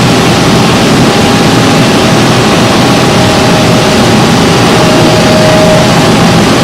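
Tongtai VTX-5 CNC milling and tapping center running: a steady machine noise with a low hum and high whines that come and go for about a second at a time.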